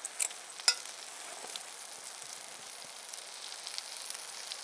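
A whole chicken sizzling in a cast-iron pot over a campfire: a steady high hiss, with a few sharp pops in the first second.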